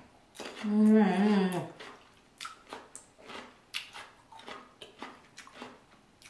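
Wet mukbang eating sounds from a seafood boil in sauce: irregular sucking and smacking clicks. About a second in, a short hummed vocal sound with a wavering pitch is the loudest thing.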